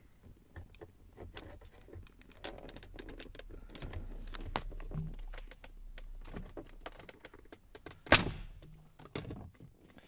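Plastic retaining clips of a Mercedes W204 C-Class centre console trim panel clicking and knocking as the panel is pulled up by hand, with one loud snap about eight seconds in as a clip lets go.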